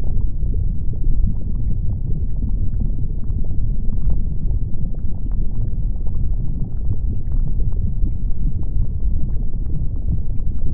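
Erupting volcano and lava: a deep, steady rumble with scattered faint crackles and pops.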